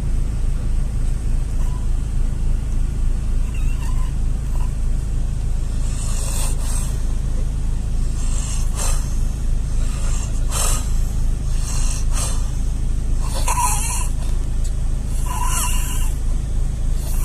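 Harsh, rapid snoring of a sleeper in a car, with noisy breaths about every two seconds from about six seconds in; the later breaths carry a squeaky, rising whistle, which the uploader takes as sounding like the breath is about to run out. A steady low drone from the car runs underneath.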